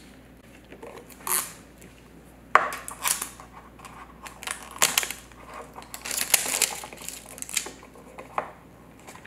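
Plastic toy packaging being handled: a wrapper crinkling and Mash'ems plastic capsules clicking and knocking on a tabletop, in irregular bursts.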